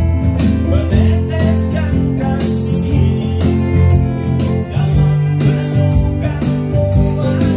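A small band playing a song together: electronic keyboard, electric bass and guitar over a steady beat, with a strong bass line.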